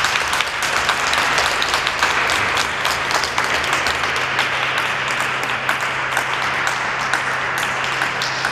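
Audience applauding, dense clapping that holds steady and eases slightly near the end.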